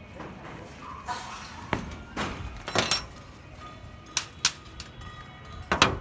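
Steel rebar and wire stirrups of a beam reinforcement cage knocking and clinking as the cage is handled and tied: about six sharp metallic knocks, the loudest near the end.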